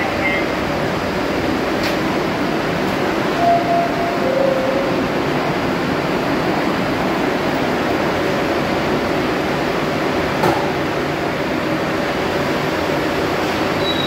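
Steady whirr of a stationary R62 subway car's air-conditioning and motor hum as the train stands at the platform. A two-note falling door chime sounds about three and a half seconds in, and there is a sharp click about ten seconds in.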